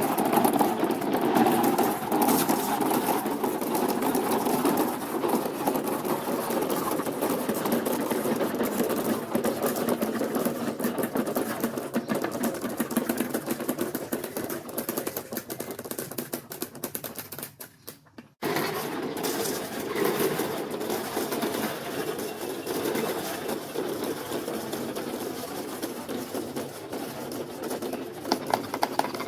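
Marbles rolling and clattering along a plastic marble-run track: a steady rolling rumble full of rapid clicks. About two-thirds of the way through it fades away, cuts off abruptly, then starts again at full level and carries on.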